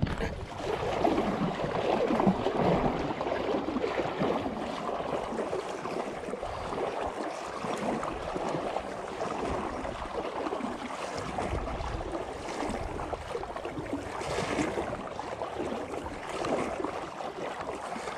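River water sloshing and swishing around a person's legs as they wade through a shallow river, in a continuous, uneven churn.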